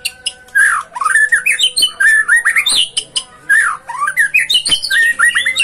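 A songbird singing a fast, varied run of chirps and short whistled notes that sweep up and down in pitch.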